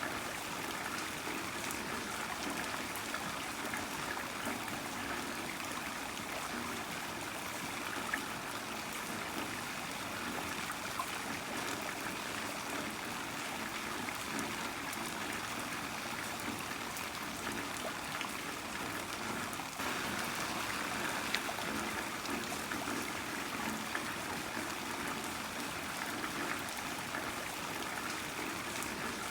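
Heavy rain falling steadily: an even rush of water with scattered single drops ticking through it. It grows slightly louder about two-thirds of the way through.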